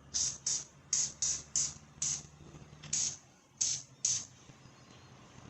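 Aerosol can of Fluid Film rust inhibitor being sprayed in nine short, quick hissing bursts over the first four seconds or so, with a faint steady hum underneath.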